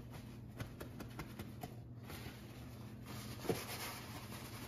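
Paper towels dabbing and rubbing over the skin of a raw turkey breast to dry it: a soft rustling with faint scattered taps, and one short knock about three and a half seconds in.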